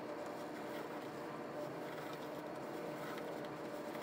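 A steady mechanical hum with several held tones, keeping an even level throughout.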